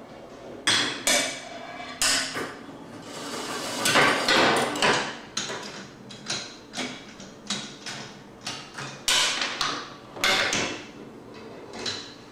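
Homemade wooden Rube Goldberg machine running: marbles roll along the wooden tracks while levers trip and wooden pieces fall, giving a string of sharp, irregular wooden knocks and clacks. A longer rolling rush builds about three to five seconds in, as a marble runs down a track or tube.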